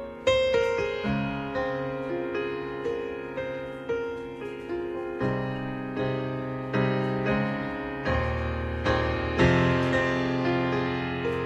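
Slow solo piano music: single notes and chords struck softly, each one ringing and fading before the next.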